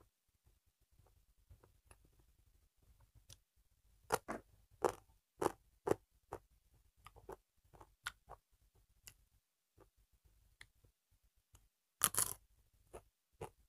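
Close eating sounds of a person eating rice and dal by hand: scattered soft clicks and smacks as fingers mix the rice in the plate and the mouth works, then a louder bite near the end.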